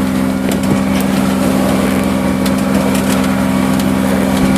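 Sailing yacht's inboard engine running at a steady speed, a constant drone that does not change pitch, over a hiss of wind and water.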